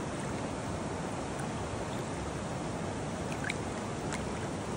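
Creek water running steadily.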